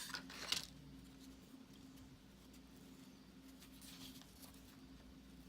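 Faint handling of cardboard trading cards: brief scrapes and rustles in the first half second and again near four seconds, over a low steady room hum.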